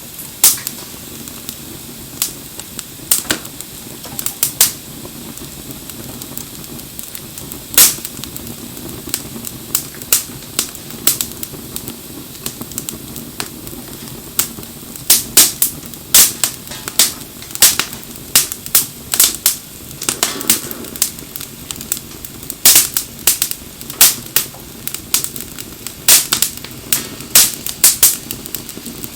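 Wood fire crackling, with sharp, irregular pops and snaps over a steady low background; the pops come thicker in the second half.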